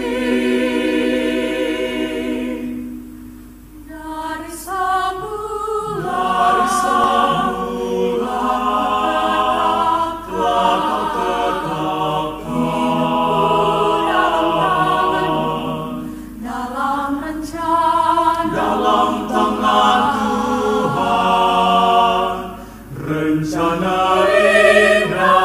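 Mixed choir of men's and women's voices singing a cappella, holding long chords. The singing drops to a quiet passage about three seconds in, then swells again.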